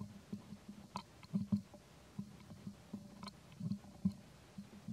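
Baby macaque suckling at its mother's nipple: soft, irregular wet smacking and clicking from its mouth, a few times a second.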